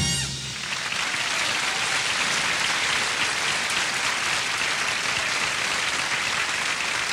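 Studio audience applauding steadily. The big band's last chord dies away in the first half second.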